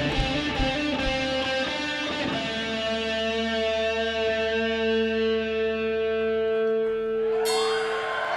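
Rock band ending a song: a few last drum hits, then a held electric guitar and bass chord ringing out and slowly fading. Audience cheering and whooping breaks in near the end.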